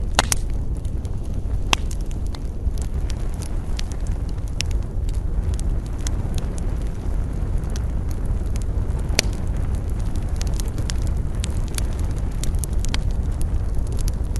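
Wood campfire crackling, with frequent sharp pops of varying loudness over a steady low rumble.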